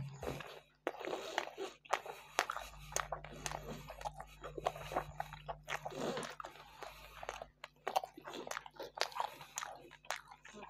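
Close-miked chewing and biting of Mosul-style meat qalya with Iraqi flatbread: a string of irregular wet mouth clicks, smacks and small crunches.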